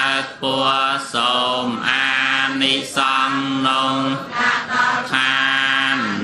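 Theravada Buddhist sutra chanting by a male voice, recited on a nearly level pitch with long held syllables and short pauses between phrases.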